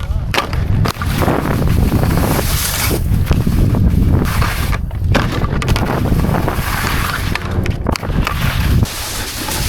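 Wind buffeting a helmet-mounted GoPro's microphone while snowboarding: a loud, gusty rumble that surges and falls, dropping away briefly a few times.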